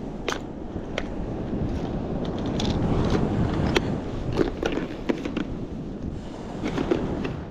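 Wind buffeting the microphone on an open beach, a steady low rumble, with a dozen or so scattered sharp clicks and ticks.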